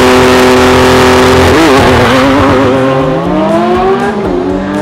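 Lamborghini Aventador SVJ's V12 holding steady revs, then accelerating hard away: the pitch climbs, drops briefly at a gear change a little after four seconds in, and climbs again.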